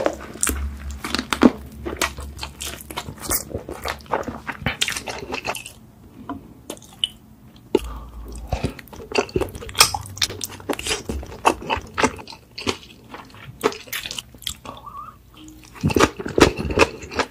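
Close-miked ASMR eating sounds: biting into and chewing thick rice cakes in sticky red sauce, with many sharp, irregular wet mouth clicks and smacks. A short lull falls about six seconds in, and a louder run of chewing sounds comes near the end.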